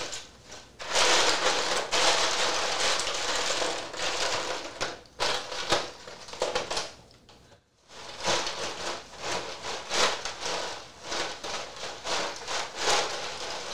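Ice cubes and ice water churning against a stainless steel brew pot as it is swirled in a plastic tub of ice to chill the wort. A dense crunching rattle for several seconds, a brief pause about halfway, then a run of sharper separate clinks.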